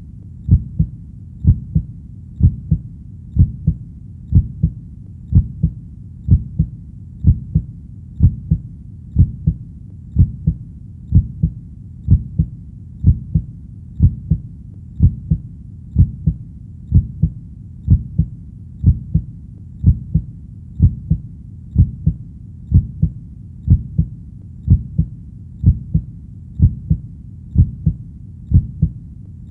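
Heartbeat thumping in a steady, even rhythm of low, muffled beats, about two thumps a second.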